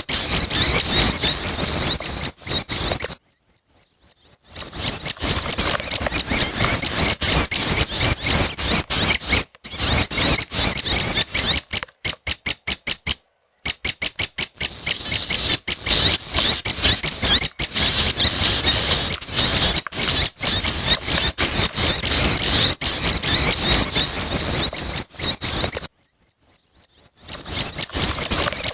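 Prenjak chicks begging: a dense, continuous run of high squeaky calls, broken by brief pauses twice, with a short series of rapid, evenly spaced ticking notes about halfway through.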